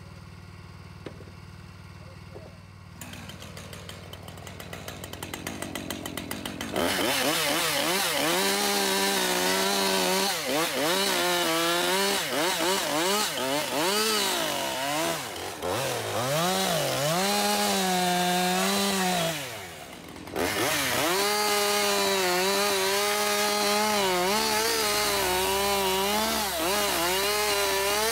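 Husqvarna 550 XP Mark II two-stroke chainsaw cutting eastern white cedar slabs into firewood. About three seconds in it idles. From about seven seconds it runs at full throttle, its pitch sagging and recovering as the chain bites into each slab. It drops back briefly about twenty seconds in, then cuts again.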